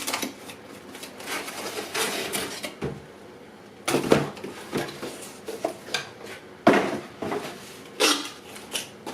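Camera kit box and its packaged contents being handled: paper and packaging rustling and scraping, with several sharp knocks, the loudest about four, six and a half and eight seconds in.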